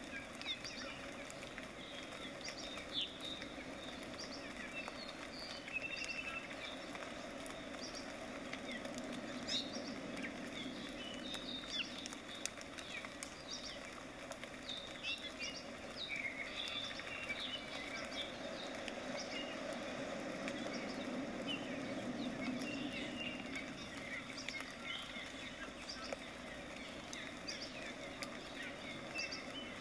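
Fan brush dabbing and stroking acrylic paint on a stretched canvas: a soft, irregular patter and scratch of bristles.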